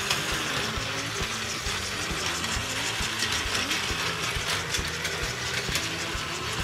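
Plarail Keisei 3000-series toy train's battery motor and gearbox running as it travels along the plastic track: a smooth running sound, a steady hum and whir with frequent light clicks of the wheels over the track joints.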